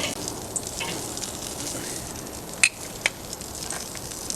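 Bacon-wrapped shrimp sizzling on a hot grill, the bacon fat crackling steadily with small pops, and two sharper pops about two and a half and three seconds in.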